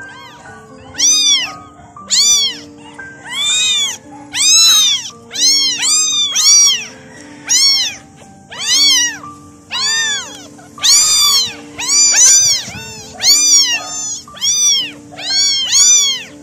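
Very young tabby kittens meowing over and over. The cries are high-pitched, each rising then falling in pitch, and come a little more than once a second, with soft background music underneath.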